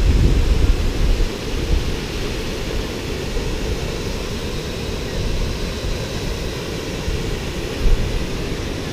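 Waterfall rushing as a steady, even noise, with wind buffeting the microphone in low thumps near the start and about eight seconds in.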